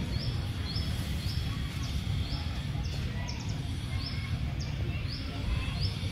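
A bird repeating a short, high chirp about twice a second over a steady low rumble of background noise.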